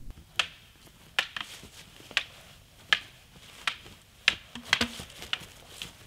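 Dry wood snapping: a run of sharp, irregular pops and cracks, roughly one every half second to a second.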